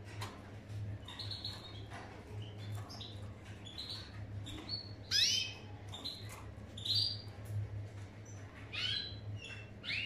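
Canaries chirping: short, scattered high calls, with a louder run of falling notes about five seconds in and more near the end, over a steady low hum.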